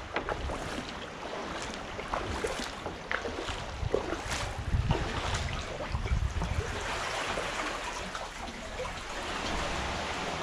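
Sea water lapping and trickling around a kayak, with scattered drips and small splashes from the paddle.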